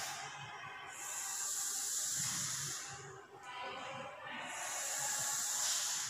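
Chalk scraping across a chalkboard in two long strokes, each lasting about two seconds, as two horizontal lines are drawn.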